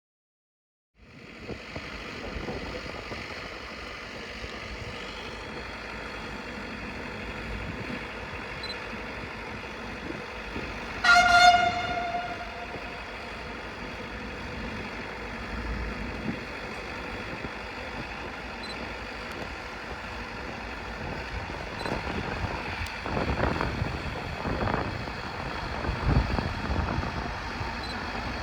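A train horn sounds once, a single note about a second long, about ten seconds in, over the steady rumble of a train at a railway station. The rumble grows louder and more uneven near the end.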